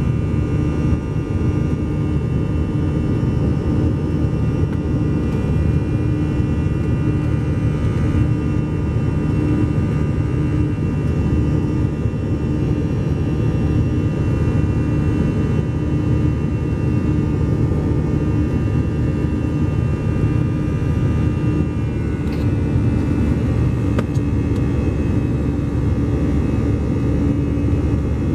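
Airbus A321's CFM56 turbofan engines at climb thrust, heard inside the cabin over the wing: a steady, loud rumble with a steady hum and several high whining tones above it.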